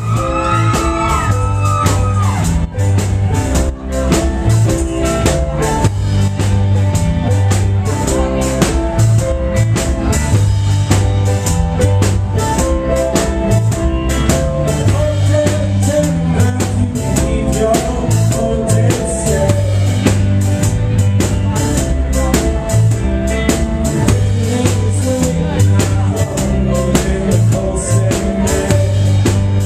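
Live rock band playing loudly: a drum kit with steady hits under electric guitars and keyboard.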